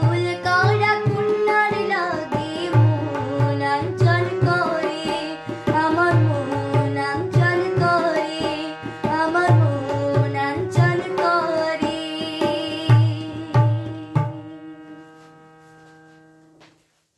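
A girl singing a Bengali song over a harmonium, with a low drum beat. The voice and drum stop about 14 seconds in, and the harmonium chord is held on alone, fading until it cuts off just before the end.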